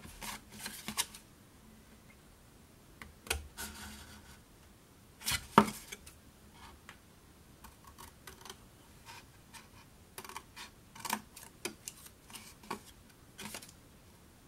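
Scissors cutting through cardstock: a run of separate snips with short pauses between, one louder snap about five and a half seconds in.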